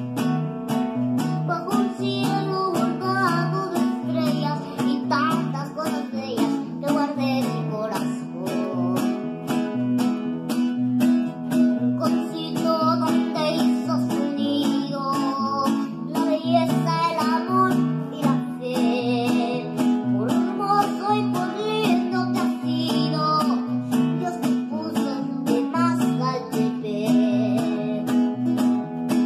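A boy singing a corrido over electronic keyboard accompaniment with a plucked-guitar sound, a steady repeating bass line and a regular beat.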